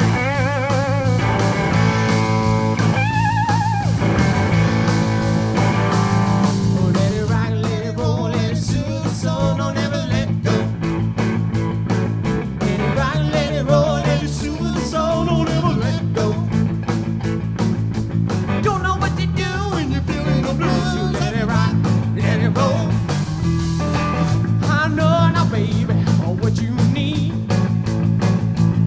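Live rock-and-roll band: Telecaster-style electric guitar, electric bass and drum kit playing together. Bent, wavering guitar notes stand out near the start; from about a quarter of the way in, the drums play busier and a sung lead vocal comes in over the band.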